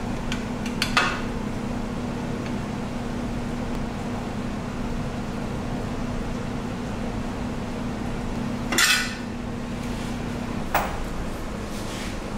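Metal parts clinking and clattering as an aluminium intake pipe and its fittings are handled. There are a few sharp clicks about a second in, a louder clatter about three-quarters of the way through and a single knock after it, over a steady low hum.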